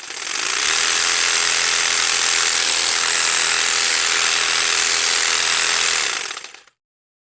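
Electric jigsaw running steadily for about six seconds, starting up quickly and winding down near the end.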